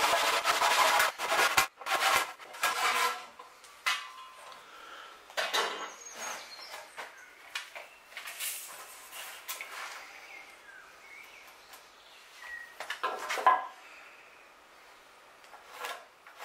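Hand-tool work on wooden mast timbers: a dense scraping for the first three seconds or so, then scattered clicks, clatters and knocks of tools on wood. The loudest knock comes about 13 seconds in.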